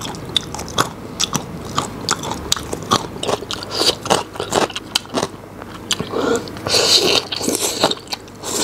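Close-miked mouth sounds of a person biting and chewing cold braised meats and vegetables: many sharp wet clicks, with a denser stretch of eating noise a little past the middle.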